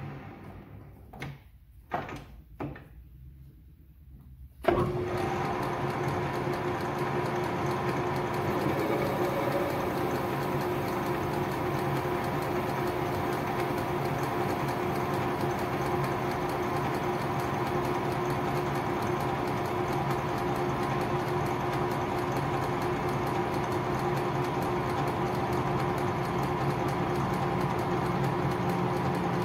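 Craftsman 12-inch metal lathe: quiet at first with a few light clicks, then the lathe's motor and drive start suddenly about four and a half seconds in and run steadily with a steady hum and a few fixed whining tones.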